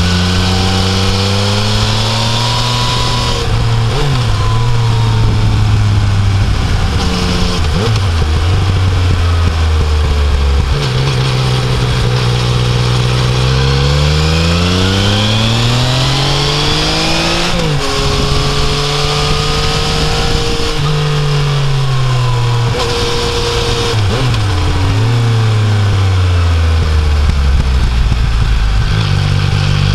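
Yamaha Tracer 900's three-cylinder engine heard on board while riding, its note rising under acceleration and falling repeatedly, with quick pitch drops at gear changes and when the throttle is closed. A steady rush of wind and road noise runs underneath.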